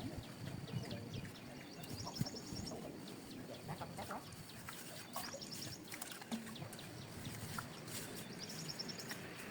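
Small birds chirping, with short high trills about 2 seconds in and again near the end, over faint outdoor background noise with scattered light clicks.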